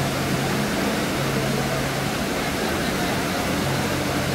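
Water park ambience: a steady rushing wash of noise, with a low hum underneath that drops out briefly twice.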